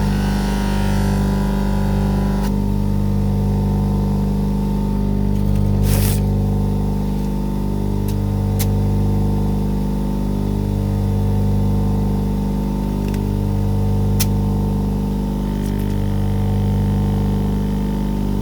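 Electric buffing motor running steadily, spinning a sisal mop loaded with cutting compound. For the first couple of seconds a knife blade is held against the mop, adding a brighter scuffing hiss, and a few faint clicks follow later.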